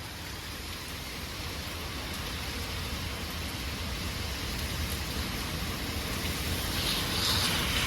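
Heavy thunderstorm rain pouring down, a dense steady hiss that grows slowly louder, with a low rumble underneath.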